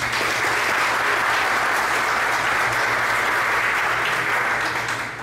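Audience applauding; the clapping holds steady, then tails off near the end.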